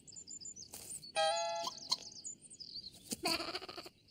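Light cartoon music with chiming high notes and a held pitched note about a second in, then a short bleat-like animal cry about three seconds in.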